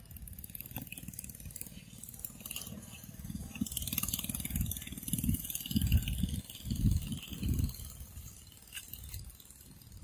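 Low irregular thuds and rumbles, loudest about five to eight seconds in, with crackly rustling over dry leafy ground.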